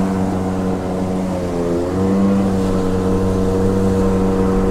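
Motorboat engine running under way. Its steady note sags a little, then steps up in pitch about two seconds in as the throttle opens.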